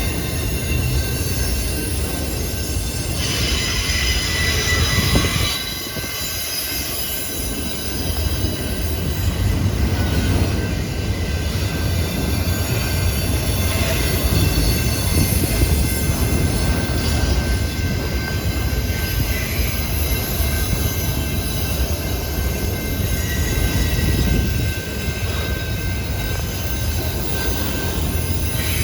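Train rolling past: a steady low rumble of the cars with thin high-pitched steel wheel squeal throughout, the squeal strongest for a couple of seconds about three seconds in.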